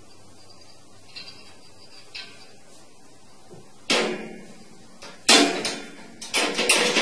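Metal wire cage door rattling as a cat paws and tugs at its latch: a few faint clinks at first, then loud clattering rattles from about four seconds in, coming in quick repeated runs near the end.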